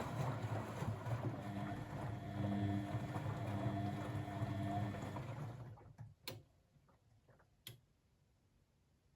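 Blomberg WAF 7442 SL washing machine running with water noise and a low hum. The sound dies away about six seconds in, followed by two or three clicks from the machine.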